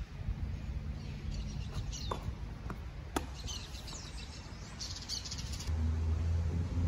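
Small birds chirping in short high calls, with a rapid trill about five seconds in, over a steady low rumble. Three sharp knocks from the tennis rally, a racket striking the ball and the ball bouncing on the court, come between about two and three seconds in. A low hum grows louder near the end.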